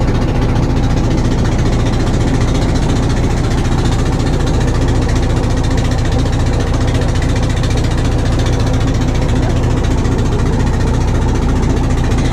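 Small wooden fishing boat's engine running steadily, a loud, even low drone.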